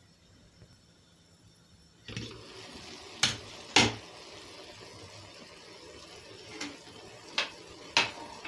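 Near silence, then a steady soft hiss of spinach and bulgur cooking in an open steel pot, with sharp clinks of metal and glass: two close together about a second after the hiss starts and two more near the end as a steel kettle and drinking glass are picked up.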